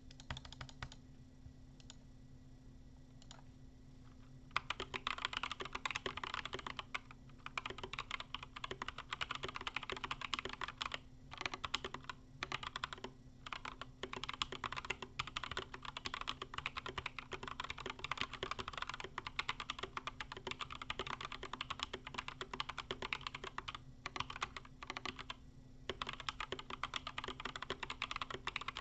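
Fast typing on a mechanical keyboard with Gazzew Boba U4T tactile switches (62 g) and YMDK Matcha keycaps, picked up by a webcam's built-in microphone. A few lone keystrokes at first, then after about four and a half seconds a dense, quick run of key presses with brief pauses.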